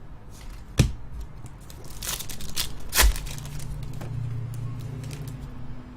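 Trading card packs being torn open and their foil wrappers crinkled while the cards are handled, with two sharp clicks or taps, about a second in and again about three seconds in.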